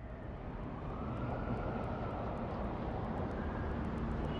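A vehicle passing on the road: a steady rush of tyre and engine noise that builds over the first second or so and then holds.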